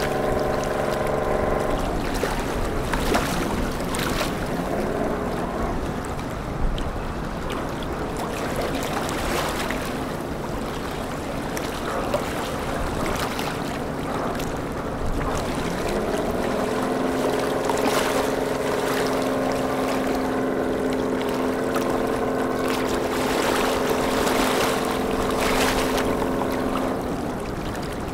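Harbour tug's diesel engine running, its pitch rising about halfway through as it throttles up under load, then holding steady until near the end, with wind on the microphone.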